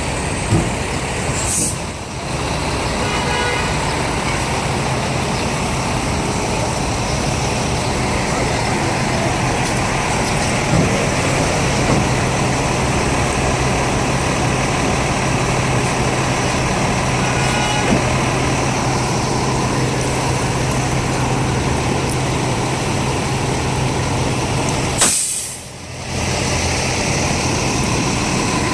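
Fire engines idling on a city street: a steady low diesel hum under street traffic noise. The sound briefly drops away twice, about two seconds in and near the end.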